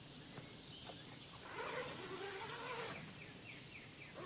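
Faint animal calls: a wavering call about a second and a half long, then a quick run of about five short falling chirps, typical of a bird.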